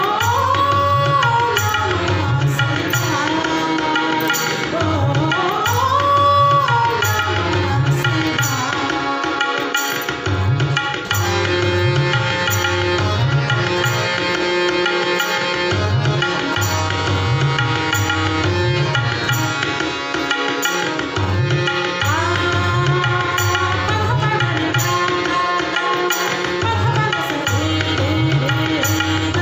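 Devotional Shiva bhajan: a woman sings long, gliding held phrases over backing music with a steady tabla rhythm. The singing comes near the start and again in the last third, with an instrumental stretch of tabla and melody in between.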